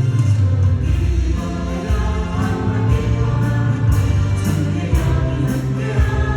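Worship band playing a Korean praise song, with several voices singing together over keyboards, acoustic guitar and drums, and cymbal strokes keeping the beat.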